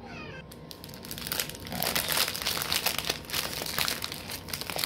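Thin plastic packaging crinkling and rustling as it is handled, getting busier and louder about a second and a half in.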